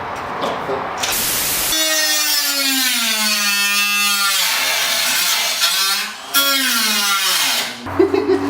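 Handheld rotary cutting tool with a cut-off wheel cutting, its motor whine sagging in pitch as the wheel bites and rising again as the load eases, several times over.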